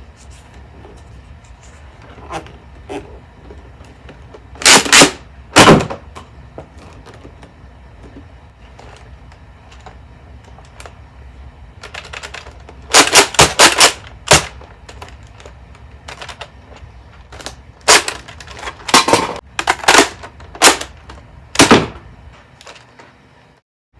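Sharp plastic clacks and snaps of Nerf foam-dart blasters being reloaded and primed: a pair of loud clacks about five seconds in, a quick run of four or five around the middle, and another run of clacks near the end.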